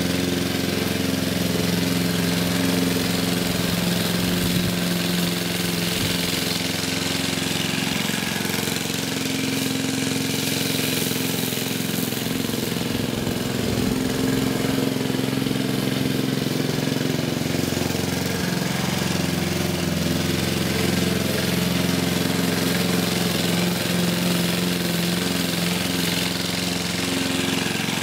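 A vintage Goodall rotary push mower's 3 HP Briggs & Stratton four-stroke engine running steadily while the mower cuts grass.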